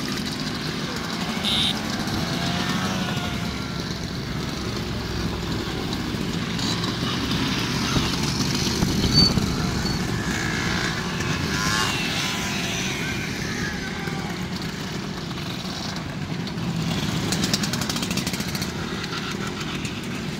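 A long procession of Vespa scooters riding past, many small engines running together, with single scooters rising and falling in pitch as they pass close.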